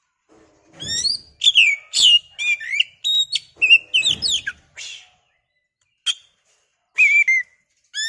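Oriental magpie-robin (kacer) singing loud, rapid, varied whistled phrases with quick up-and-down glides. The song starts about a second in, breaks off briefly after about five seconds, and resumes near the end.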